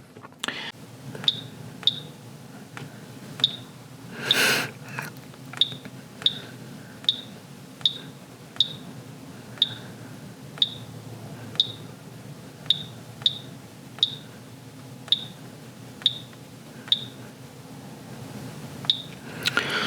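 Keypad beeps from a Hague WaterMax Signature Series water softener's control valve as its buttons are pressed to step through the settings menu. Each press gives a short high beep, about two dozen in all, roughly one every half second to a second with short pauses. A brief burst of noise comes about four seconds in, over a steady low hum.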